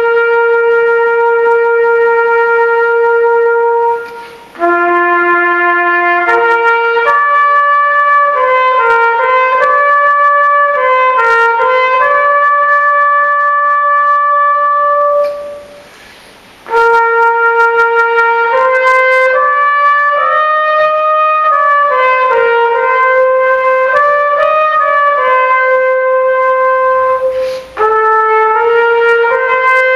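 Solo trumpet playing a slow melody in long held notes, with short breaks between phrases.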